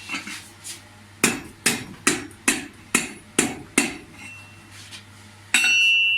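Blacksmith's hand hammer striking metal: a few light taps, then seven hard blows at about two and a half a second, followed near the end by a loud ringing clang of metal.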